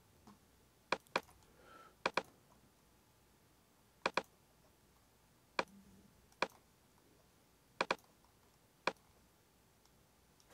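Computer mouse clicking: short sharp clicks a second or two apart, several of them quick double-clicks.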